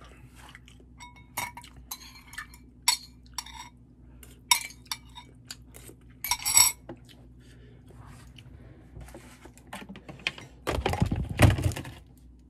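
Metal chopsticks clinking against a bowl, several separate sharp clinks with a short ring. Near the end comes a louder, longer clatter of handling noise close to the microphone.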